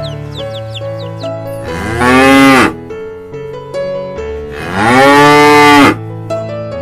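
A cow mooing twice, each moo a loud call that rises and then falls in pitch. The second moo is longer. Soft piano music plays underneath.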